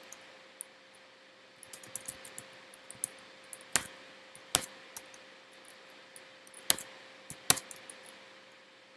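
Computer keyboard keystrokes and clicks: scattered light taps, with four louder sharp clicks spread through the middle, over a faint steady hum.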